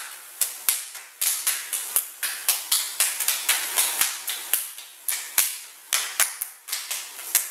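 Two people's hands clapping and slapping against each other in a hand-slap routine: a fast, irregular run of sharp claps, about three a second.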